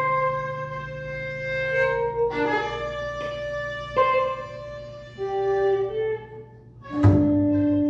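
Viola bowing long held notes that shift slowly in pitch, with a low held tone under it through the first half. The sound thins and drops around six and a half seconds, then a loud entry with low notes comes in near the end.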